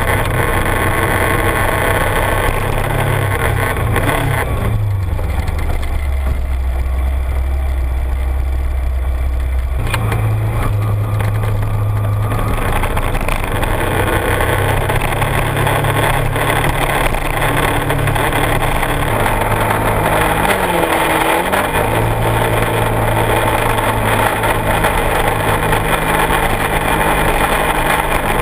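Kawasaki Ninja 250R parallel-twin engine through a Dan Moto aftermarket exhaust, running under way. Its note drops low for about five seconds near the start, then picks up again and runs steady, with a brief dip and rise in pitch about two-thirds of the way through.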